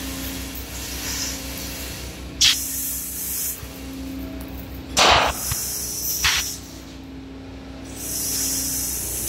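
Natural-gas engine-driven gas compressor running: a steady hum over a fast, even low pulsing, buried under a strong hiss. Several short, loud bursts of hiss stand out a couple of seconds apart.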